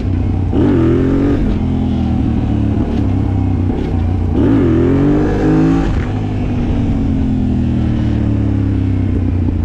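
Yamaha Raptor quad with a swapped-in Yamaha MT-07 689 cc parallel-twin engine, ridden and accelerating: the revs climb in two pulls, briefly about a second in and longer around four to six seconds in, then the engine runs steadily as the revs slowly drop.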